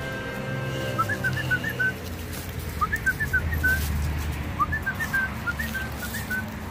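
A high whistled phrase of quick notes, each phrase opening on a rising note, heard three times over a low steady hum.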